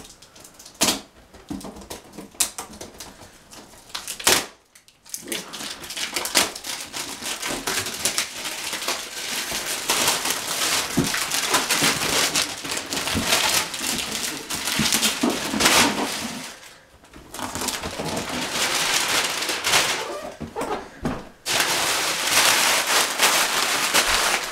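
Clear plastic shrink-wrap crinkling and crackling as it is torn and pulled off a cardboard box. There are a few sharp snips of scissors in the first few seconds, and the crackling breaks off briefly twice in the second half.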